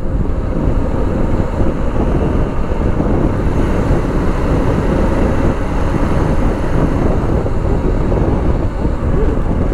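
Royal Enfield Himalayan's 411 cc single-cylinder engine running at riding speed under steady wind rush on the microphone.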